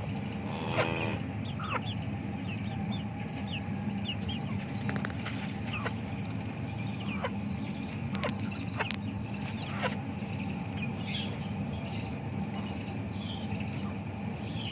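Hens clucking and chicks peeping: scattered short, high chirps and a few brief calls, one louder call about a second in, over a steady low hum.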